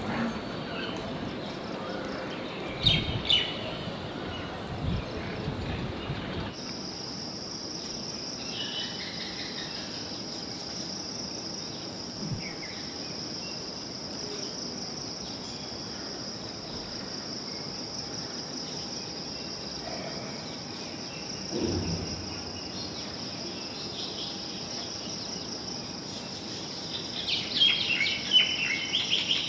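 A steady, high insect drone, starting about six seconds in, with a few scattered bird chirps. Near the end, dogs squabbling face to face give a short burst of snarling and yelping.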